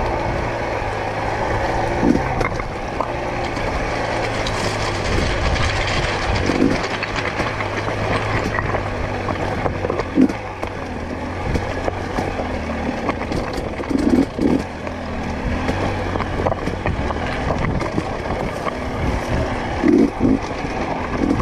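2022 GASGAS EC250 two-stroke dirt bike engine running at low revs while being ridden slowly over loose rock, its note rising briefly a handful of times as the throttle is worked.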